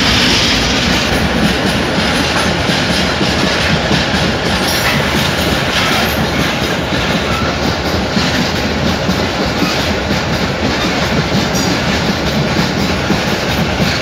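Freight train wagons rolling past close by, loud and steady, their steel wheels clattering over the rail joints in a running clickety-clack.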